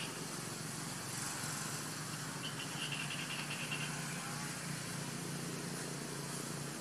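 A steady low engine hum under constant outdoor hiss. A short, rapid trill of chirps from an unseen animal comes in about two and a half seconds in and lasts about a second.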